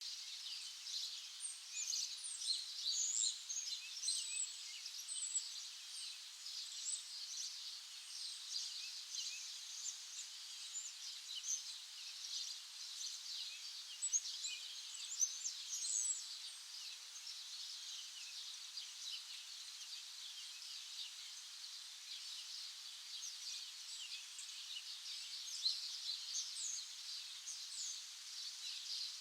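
A chorus of many small birds chirping at once: dense, overlapping short high chirps, with a few louder calls standing out near the start and around the middle.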